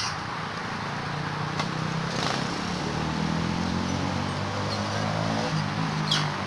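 Steady low hum of a motor vehicle's engine running, growing a little stronger from about two seconds in, over a steady hiss. A few short, high chirps cut through it, the clearest one about six seconds in.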